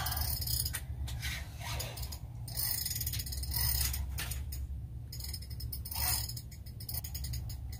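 Fishing reel clicking and whirring in repeated short bursts while a sturgeon is fought on the line and keeps running, over a low steady hum.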